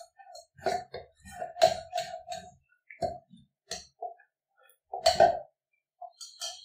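Steel spoon stirring wheat flour batter in a stainless steel vessel: irregular clinks and scrapes against the vessel's side, each clink ringing briefly with the same metallic note, the loudest about a second and a half in and again about five seconds in.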